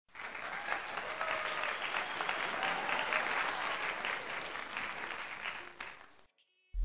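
Applause: many hands clapping at once, with a few faint voices in it, fading out near the end. A loud sudden sound cuts in right at the end.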